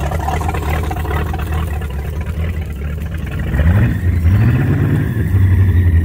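The 1986 Ski Supreme ski boat's 351 Windsor Ford small-block V8 idles, then is revved twice about three and a half seconds in. It then settles into a louder steady run.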